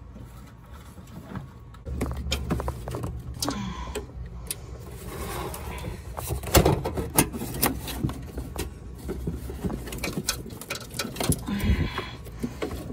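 Plastic washer fluid reservoir and its pump being pushed and worked into place in a truck's engine bay: scattered clicks, knocks and scraping of hard plastic, over a low steady rumble that starts about two seconds in.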